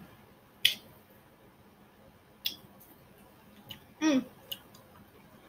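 A few short, sharp clicks, about five of them spread out, with a brief voiced sound a little after four seconds in.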